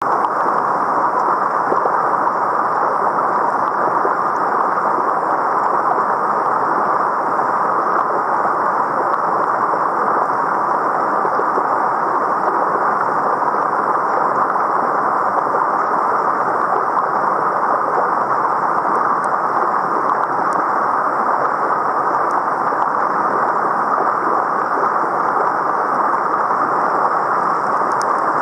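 Mountain stream water rushing steadily over rocks, an even, unbroken noise.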